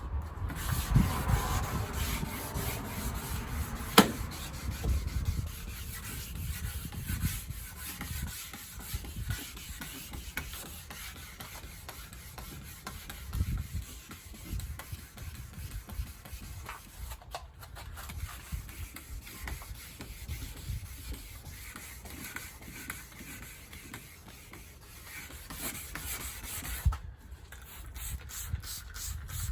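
Wet sanding of spray-can primer on a 1984 Corvette body panel with 1000-grit paper: an uneven back-and-forth rubbing that sounds gritty from the still-rough primer. There is one sharp click about four seconds in.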